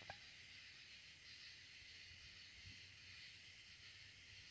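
Near silence: faint crickets chirping steadily in the night.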